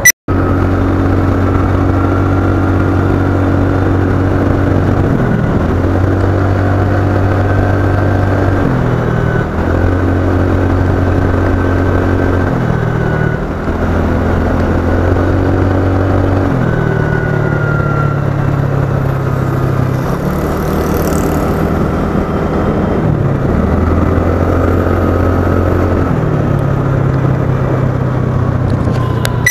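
Background music with a bass line that holds each note for a few seconds, then steps to the next in a repeating pattern.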